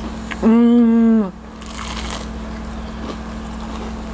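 A woman's closed-mouth "mmm" of enjoyment, one held hum about half a second in and lasting about a second, then quieter chewing of a crispy breaded onion ring.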